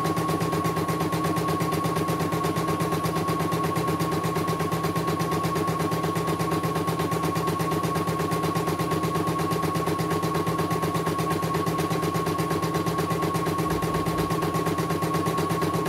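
CNY E900 portable computerised embroidery machine stitching a design: a rapid, even run of needle strokes over a constant high motor whine.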